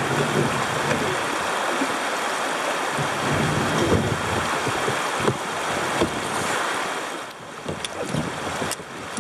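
Rushing, splashing water of a shallow river rapid around a kayak's bow as it runs through, with a few sharp knocks in the second half. The rush eases near the end.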